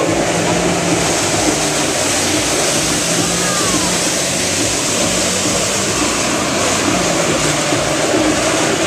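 Steady rushing hiss of Flyboard water jets spraying from the board's nozzles, over the steady drone of the jet ski's engine running hard to pump water up the hose.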